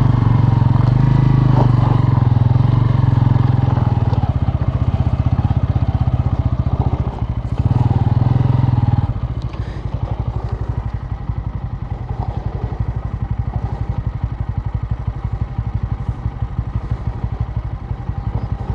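Bajaj Pulsar N160's single-cylinder engine running hard under load on a loose, rocky climb, then dropping about nine seconds in to a quieter, low-revving putter with evenly spaced firing pulses.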